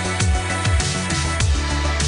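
Electronic dance music with a steady beat: deep bass-drum hits that drop in pitch and bright hi-hat-like ticks over sustained synth tones.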